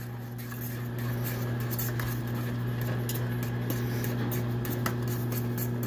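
A metal spoon scraping and clicking against a stainless steel pot as instant mashed potatoes are stirred, with many small irregular ticks. Under it runs a steady low electrical hum.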